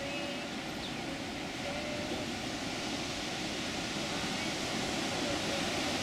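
Heavy ocean surf breaking and washing over jagged lava rocks: a steady rushing noise that swells slightly toward the end.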